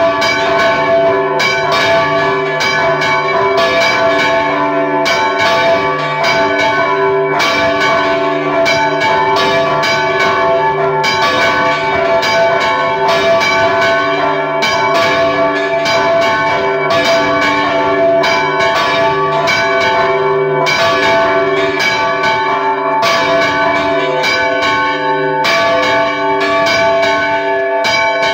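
A festive repique of several church bells rung by hand, close up in the belfry. The bells are struck in quick succession without pause, so their tones overlap in one continuous, loud clangour.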